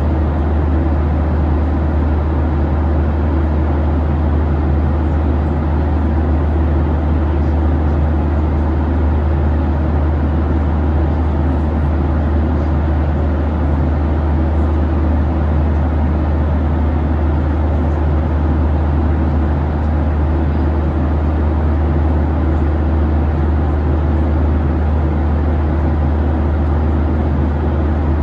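Steady drone inside the cabin of a Boeing 737-800 airliner: engine and airflow noise, a strong low hum under an even rushing hiss, unchanging throughout.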